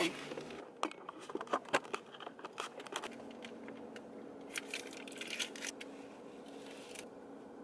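Rustling and light clicking of a plastic dipping-sauce cup and its peel-off lid being handled and pulled open, in scattered small crackles, most of them in the first three seconds and again near the middle. A faint steady hum lies underneath from about three seconds in.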